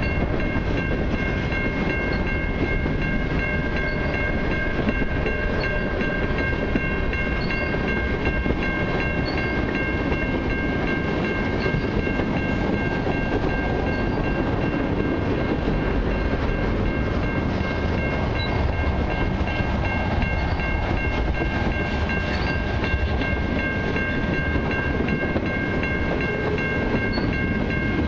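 Freight train's hopper and tank cars rolling past, a steady rumble with wheel clatter, and a steady high ringing held over it.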